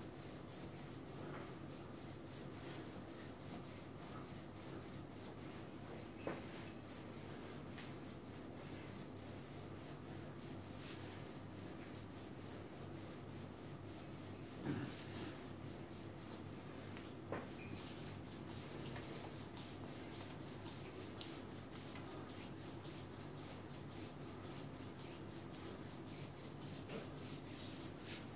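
Hands rubbing and kneading an oiled lower leg in a massage: faint, steady rubbing of palms on skin, with a few soft knocks.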